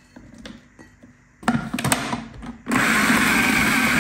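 A few plastic knocks as the food processor's lid and feed-tube pusher are fitted, then, about two-thirds of the way in, the food processor starts and runs steadily, its S-blade chopping dates into a ground nut and seed mix.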